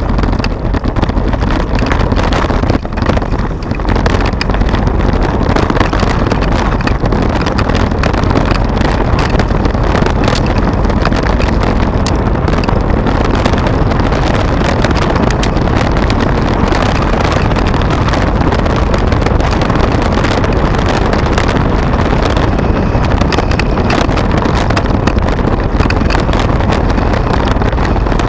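Steady wind buffeting on the microphone and the rumble of mountain bike tyres rolling over a gravel track, with many small clicks and rattles from the bike jolting over stones.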